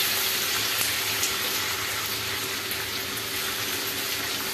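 Ginger-garlic paste sizzling steadily in hot oil in a non-stick kadhai, being fried toward golden brown while it is stirred with a spatula; the sizzle eases a little over the seconds.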